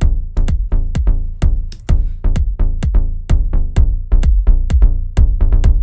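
Tech house kick drum and bassline looping together in an electronic track, short punchy bass notes falling between steady kicks with heavy low end. The pair runs through a saturator, glue compressor and EQ boost for intentional distortion and punch.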